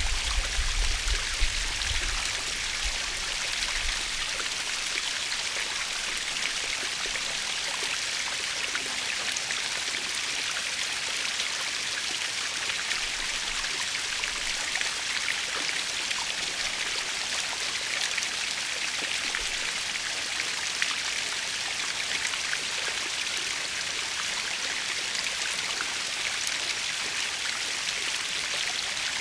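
Natural waterfall: water falling and splashing in an even, steady hiss. A low rumble at the start fades out within the first couple of seconds.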